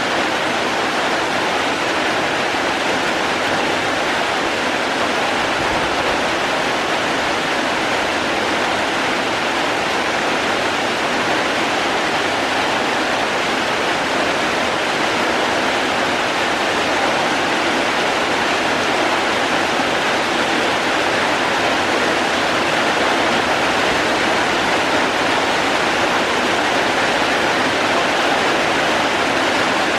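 Steady rain with rushing running water: an even, unbroken hiss that stays the same throughout.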